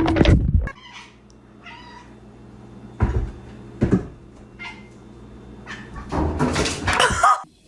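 A domestic cat meowing, one long drawn-out meow near the end, with a couple of short knocks before it.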